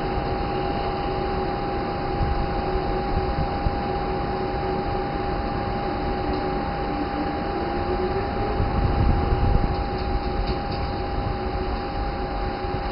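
Electric locomotive hauling a passenger train away from a station platform: a steady mechanical hum with fixed whining tones over a low rumble, one tone rising briefly about seven seconds in.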